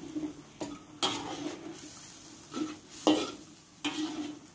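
Metal spatula stirring chicken pieces around a wok, with several sharp scrapes and clacks against the pan, the loudest about three seconds in. A faint bubbling of the boiling soy-ginger broth runs beneath.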